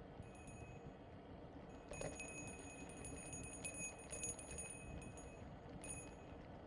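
Road bike's rear freewheel ticking rapidly in spells while coasting, longest from about two seconds in for a couple of seconds, over a steady low rumble of tyres rolling on asphalt.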